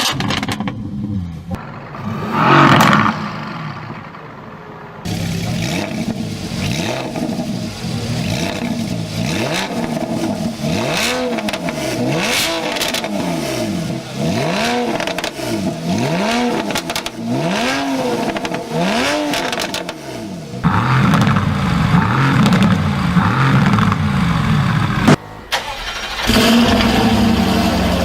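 Performance car exhausts being revved in a series of cut-together clips. A run of throttle blips makes the engine note rise and fall about every second and a half, with sharp crackles and pops on the overrun. The last clip settles to a steady idle.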